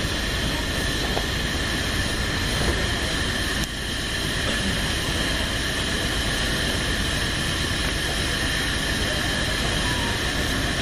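Steady machine noise: a low rumble under a constant high whine that does not change.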